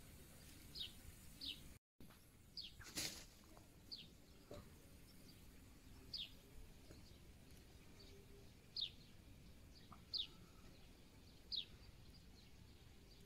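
A small bird repeating a short, high, falling chirp every second or two over a faint outdoor hiss, with a single sharp click about three seconds in.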